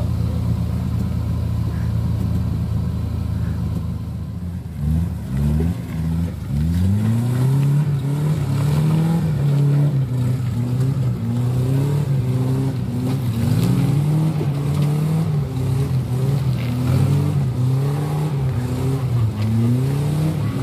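Willys jeep engine on a muddy off-road climb. It drones steadily at first, then from about five seconds in it revs up and drops back again and again, rising and falling every second or so.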